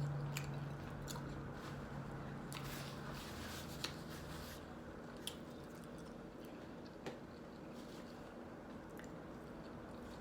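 Close-miked chewing of a breakfast sandwich: soft, moist mouth sounds with a few short sharp clicks scattered through.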